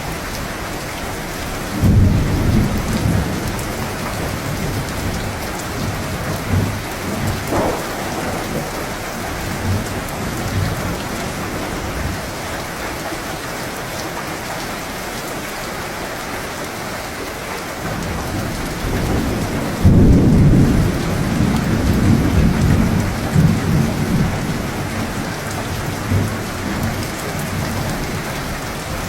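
Steady heavy rain falling, with two rolls of thunder rumbling in, one about two seconds in and a louder one about twenty seconds in, each fading over several seconds.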